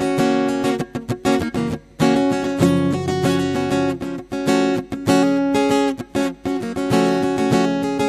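Harvey HG100 SCE acoustic-electric guitar with a solid spruce top and phosphor bronze strings, played fingerstyle: chords and single notes picked in quick succession and left to ring, with a short break about two seconds in.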